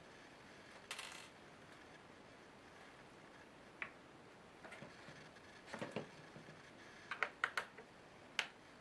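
Small clicks and taps of a screwdriver and hands working on the plastic underside of an Asus K75VJ laptop, spaced irregularly, with a quick run of sharp clicks and one last click near the end.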